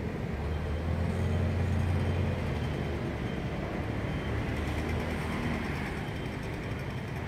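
A low, steady engine rumble, loudest in the first two seconds and then easing off, over general outdoor noise.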